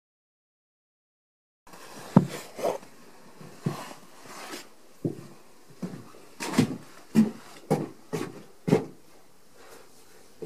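Silence for a little under two seconds, then a series of about a dozen irregular soft thumps and knocks.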